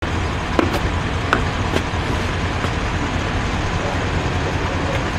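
A large SUV's engine running with a steady low rumble as it stands at the kerb, with a few sharp steps of boots on paving in the first two seconds.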